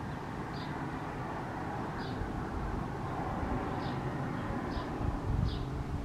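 A steady low background rumble that grows stronger near the end, with a small bird's short high chirps every second or so.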